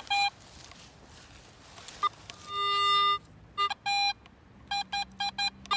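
Garrett AT Pro metal detector giving its target tone over a buried lead ball. There is a short beep at the start and a longer steady tone about two and a half seconds in, then a quick run of short beeps near the end, about four a second, as the coil passes back and forth over the target.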